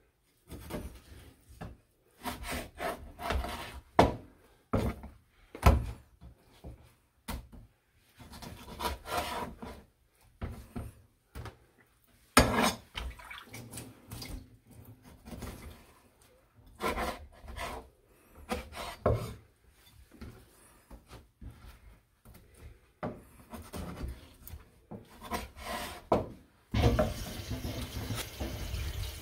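Kitchen knife scraping and knocking on a plastic cutting board in irregular strokes as the skin is cut away from raw fish fillets. Near the end a tap starts running steadily into the sink.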